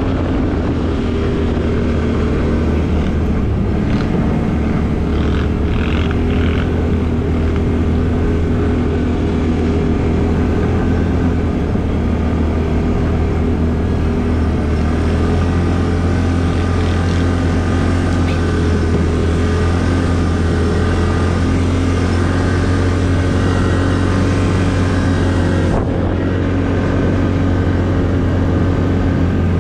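ATV engine running steadily at a fairly constant speed, a loud continuous drone with only slight rises and falls in pitch.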